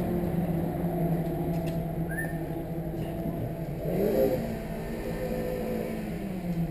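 A motor running with a steady hum; its pitch rises sharply about four seconds in, holds, then sinks slowly near the end.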